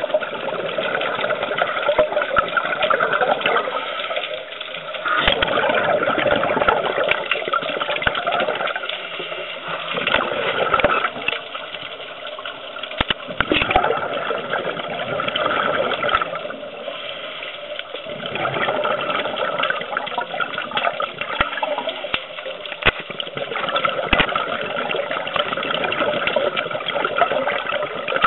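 Scuba breathing heard underwater through a camera housing: muffled rushing of regulator exhaust bubbles that swells and fades every few seconds, with scattered clicks.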